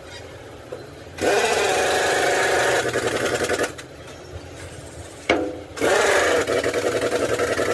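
A power tool running in two bursts of fast, even rattling. The first starts about a second in and stops near the middle; the second follows a sharp knock and starts near the end. A steady low hum runs underneath.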